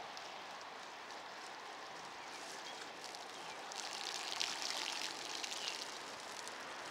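Rain falling and bike tyres hissing over wet, puddled pavement, with a louder crackling splash of water from about four seconds in to nearly six.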